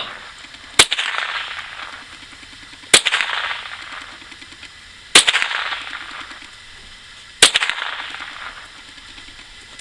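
Four rifle shots about two seconds apart, each a sharp crack trailing off over about a second.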